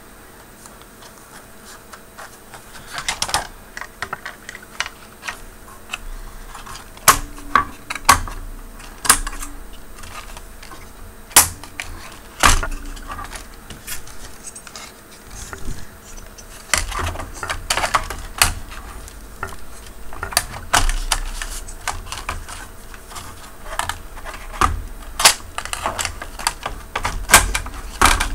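Irregular sharp clicks, taps and knocks of a monitor's power inverter circuit board being handled and fitted back into its sheet-metal chassis, with a few dull low bumps between them.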